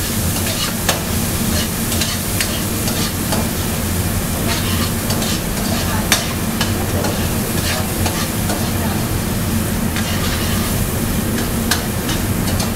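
Vegetables sizzling in a hot steel wok, with irregular clinks and scrapes of a metal skimmer and ladle stirring them against the pan. A steady low hum runs underneath.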